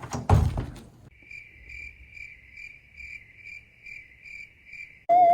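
Cricket chirping, an evenly spaced run of high chirps about two a second, after a brief loud thump at the start. A wavering musical tone cuts in right at the end.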